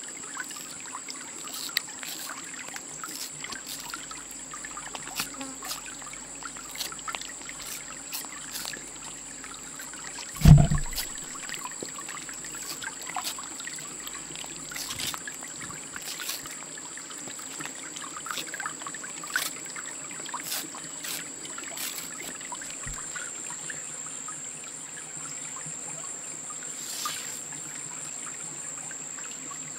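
Shallow forest stream trickling over stones, with a steady high insect drone. About ten seconds in there is one loud low thump.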